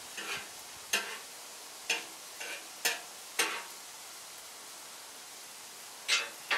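Food sizzling on a grill, with a run of short scraping and clinking strokes of a cooking utensil against the cookware: about six in quick succession, a pause, then two more near the end.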